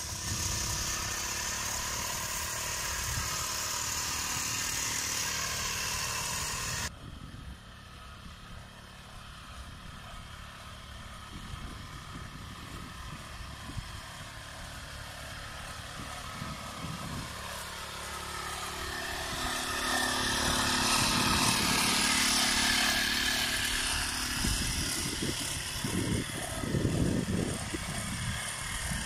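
Small petrol engine of a motorized backpack crop sprayer running steadily at a constant speed. The sound drops suddenly about seven seconds in, then slowly grows louder again, with some low rumbles near the end.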